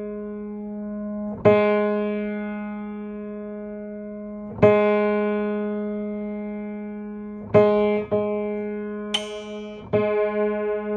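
A guitar string plucked about five times, each time left to ring on the same single note, as it is being tuned. About nine seconds in, a sharp snap cuts in: the snapping that knocks the tuning about 5 cents up or down with each click and keeps the guitar from going into tune.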